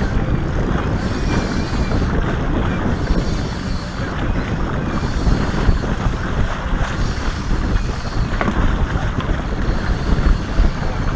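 Wind buffeting the microphone over a trolling boat running on open water, a steady, uneven low rumble.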